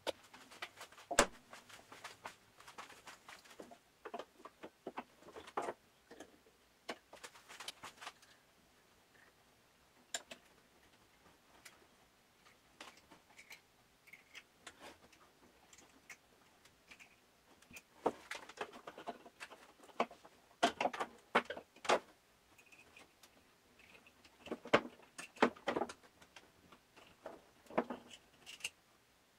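Small clicks, taps and scrapes of hands working at a harpsichord's wooden register and its capstan adjustment screws, in scattered bursts with quiet stretches between.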